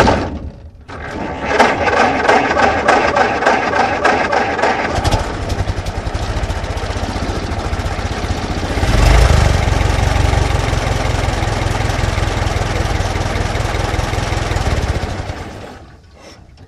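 Old car engine being cranked by its starter in a rapid, even rhythm, then catching about five seconds in and running steadily, with a brief rise in revs in the middle before it fades out near the end.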